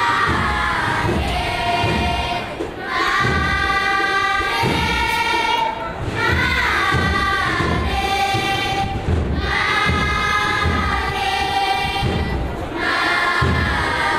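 A school choir of young voices singing together in phrases of about three seconds, with brief breaks between them. Low thuds run underneath.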